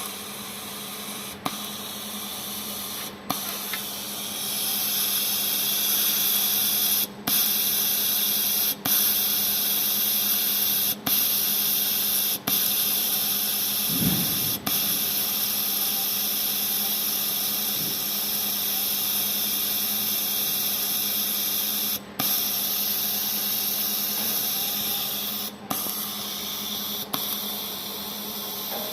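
An electric welding arc hissing steadily over a low electrical hum. It cuts out for a moment about nine times at uneven intervals as the arc is broken and struck again between strokes, and grows louder a few seconds in.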